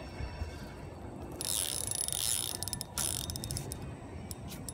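Fishing reel's drag buzzing for about two seconds as a hooked catfish pulls line off, followed by a few separate clicks from the reel.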